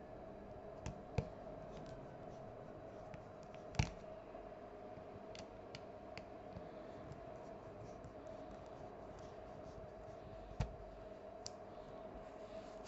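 Faint, scattered clicks and taps from hands handling a smartphone's small parts and tiny screws during reassembly, about eight in all, the loudest about a second in, near four seconds and near ten and a half seconds, over a steady hum.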